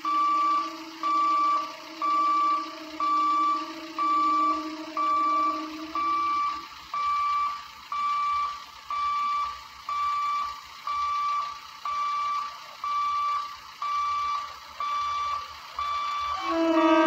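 Level-crossing warning alarm beeping about once a second, warning of an approaching train, with a low steady tone underneath for the first six seconds. Near the end a loud electric train horn starts sounding.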